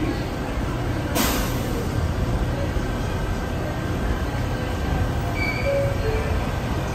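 A Bombardier R142 subway train standing in the station with a steady low hum and rumble, and a sharp burst of air hiss about a second in.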